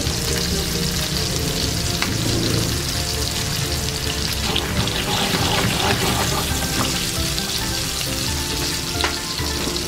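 Salmon steaks sizzling steadily in olive oil and butter in a frying pan as sliced garlic is added beside them.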